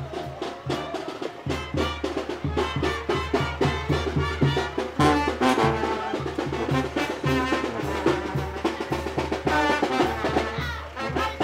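Mexican brass band (banda) playing a lively tune: sousaphone pumping the bass on a steady beat under trumpets, with bass drum and percussion.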